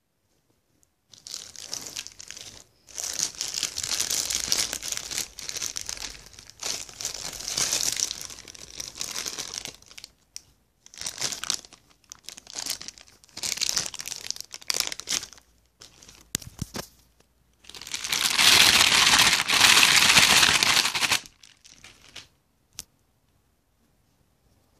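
Packaging crinkling as it is handled and unwrapped by hand, in a series of bursts with short pauses; the longest, loudest stretch comes about three-quarters of the way through.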